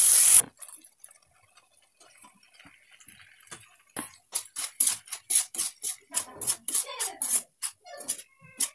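Frying masala sizzles and cuts off about half a second in. After a quiet stretch, a steel ladle clicks and scrapes against the nonstick pan in quick, uneven strokes, about two or three a second, as macaroni is stirred into the masala.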